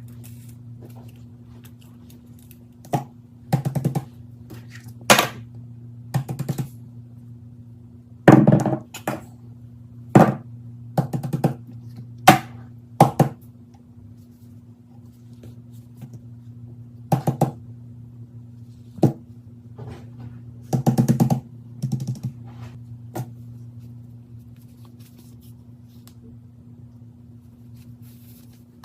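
Sharp clicks and taps from plastic fidget toys being handled, coming in irregular single strikes and short quick clusters, over a steady low hum.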